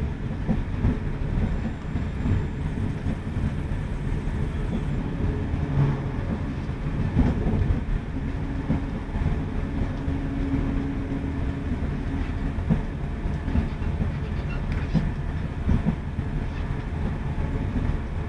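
Steady rumble of a moving diesel multiple-unit passenger train heard from inside the carriage, with a few short knocks from the wheels on the track.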